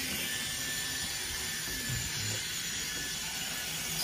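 Plastic comic-book bags and sleeves crinkling and rustling steadily as the comics are handled and pulled from a cardboard box.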